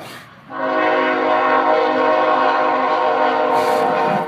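A long, loud horn blast of several steady tones sounding together. It starts about half a second in and holds at one pitch for about three and a half seconds before stopping just before the end.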